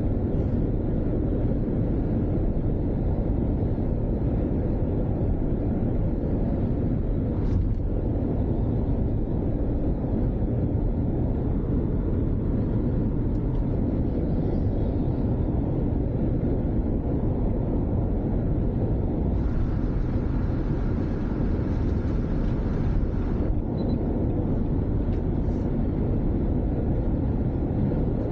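Steady low rumble of engine and tyres, heard from inside a moving vehicle's cabin. A brief added hiss comes in for a few seconds about twenty seconds in.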